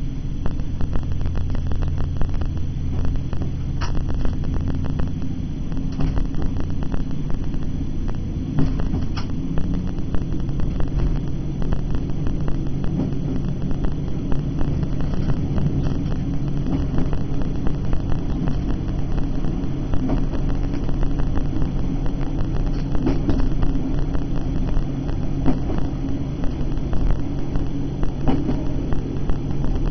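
A diesel multiple unit heard from its driving cab: the diesel engine running under power with a steady low rumble, and scattered clicks and knocks from the wheels on the track as the train gathers speed.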